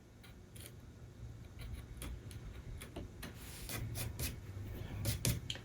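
Light clicks and taps of woodworking hand tools being handled on a workbench, with a short scratchy rub a little past the middle and a sharper cluster of clicks near the end.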